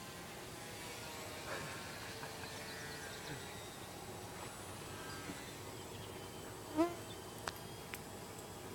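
Distant buzz of a small electric RC plane's motor and propeller (E-flite UMX Beast), drifting in pitch as the plane flies about. About 7 seconds in there is a short call rising in pitch, followed by two sharp clicks.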